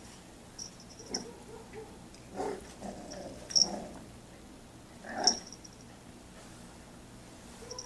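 Miniature Australian Shepherd puppy making short play growls and grunts in a few scattered bursts, with sharp clicks at the two loudest moments.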